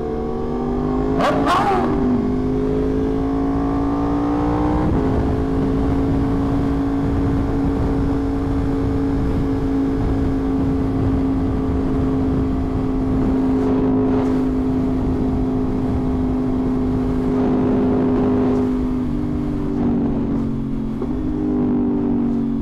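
Yamaha R1 inline-four engine running at a steady high pitch while cruising, with a low rush of wind and road noise underneath. The pitch climbs slightly over the first few seconds, holds, then drops a step near the end as the throttle eases.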